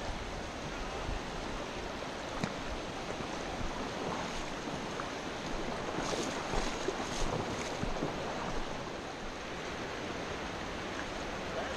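A fast, shallow river running over a stony bed: a steady rush of water, with a few short, sharper sounds near the middle.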